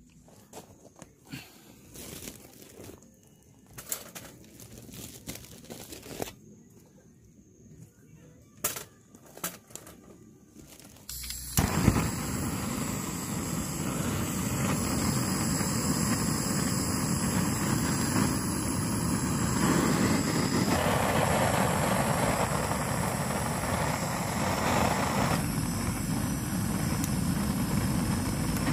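A few light clicks and knocks, then about eleven seconds in, a loud crackling sizzle of food in a hot pan starts suddenly and keeps going steadily.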